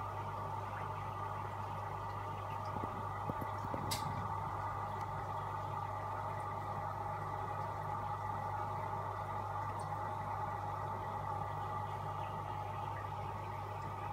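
Aquarium filtration in a fish room running: a steady electric hum with a wash of moving water. A single light click about four seconds in.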